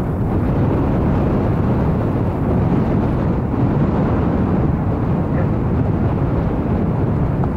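Strong wind buffeting the microphone: a loud, steady rumble with no break.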